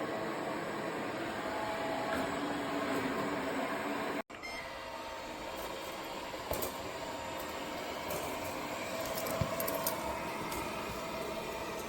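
Airzeen R7 robot vacuum running, a steady motor and fan hum with a few light clicks and taps. The sound drops out for an instant about four seconds in.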